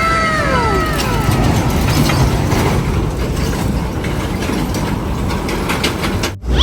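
Heavy road traffic of trucks and buses running, a steady rumble. It opens with a short tone that slides down in pitch for about a second.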